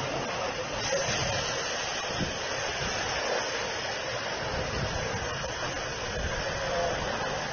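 Violent storm wind rushing steadily and without a break, with a light knock about two seconds in.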